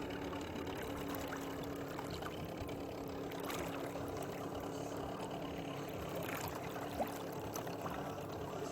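Water sloshing and trickling at the side of a boat as a sturgeon is held in the river to revive it before release, over the steady hum of an idling boat motor.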